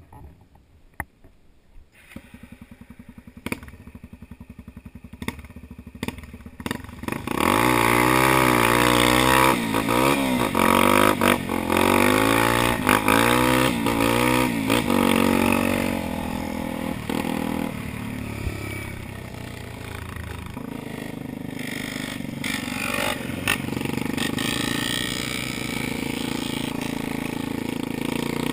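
Dirt bike engine under the rider, with light knocks and clatter at first, then revving hard about a quarter of the way in, its pitch climbing and dropping again and again through the gears. After that it runs steadier and a little quieter at a cruising pace.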